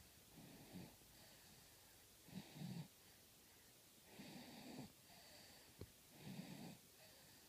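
A sleeping baby snoring faintly, a short snore on each breath about every two seconds.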